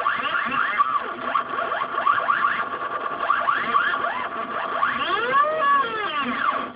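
Stepper motors of a homemade CNC machine running a drawing job, driving a belt-drive THK linear actuator and a ballscrew Lintech axis. They give a string of whines that rise and fall in pitch as each move speeds up and slows down, over a steady high tone. The sound stops abruptly near the end.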